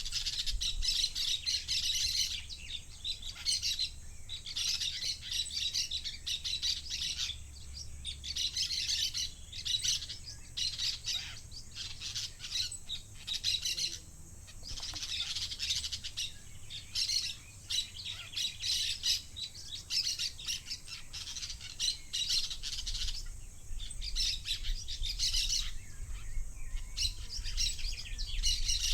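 A flock of parakeets calling, many high-pitched calls overlapping in dense bouts that break off briefly every few seconds.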